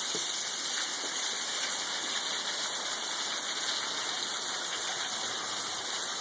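Small waterfall pouring, a steady, even rush of falling water.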